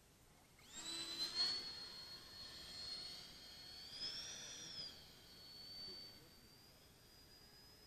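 An RC F-5 jet model's 70 mm twelve-blade electric ducted fan whining in flight. The high whine starts about a second in, rises in pitch briefly around the middle, then falls back and fades.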